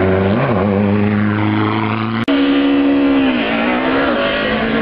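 Hillclimb racing car's engine running hard at high revs, its pitch dipping and climbing again twice as it changes speed through the bends. The sound breaks off for an instant a little past two seconds in and comes back with a higher note.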